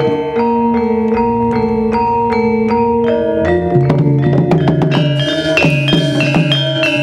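Javanese gamelan ensemble playing: bronze metallophones struck in a ringing melody, quickening into denser strikes with deeper notes joining after about three and a half seconds.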